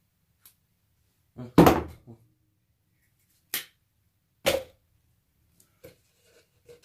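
Handling noise from a tin-snips job: a loud thunk about one and a half seconds in, then two sharper knocks about a second apart, with a few faint ticks between.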